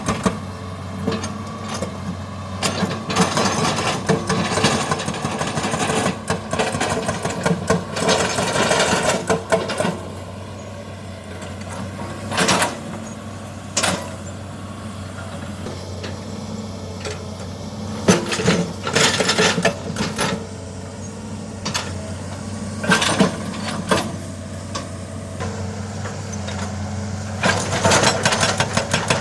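A steady low engine hum, with louder swells of noise every few seconds.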